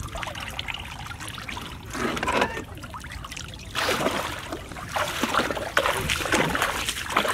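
Shallow water splashing and trickling as a man wades through it, with water dripping and sloshing around a crate of freshly caught fish; the splashing grows busier about four seconds in.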